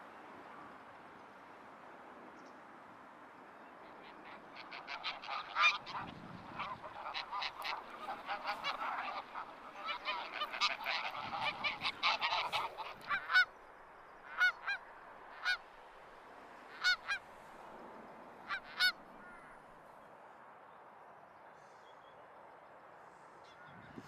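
Geese honking. A dense run of overlapping calls starts about four seconds in, then thins to single and paired honks that stop a few seconds before the end, over a steady background hiss.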